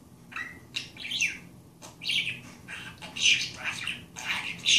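Budgerigar chattering: a quick, irregular run of warbles, chirps and squawks with no break.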